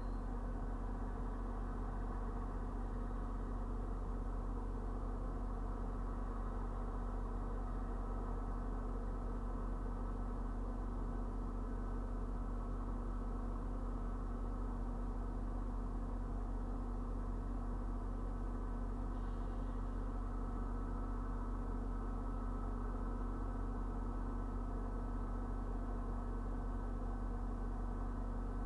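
A steady, unchanging low engine hum, picked up by a dashcam inside a vehicle.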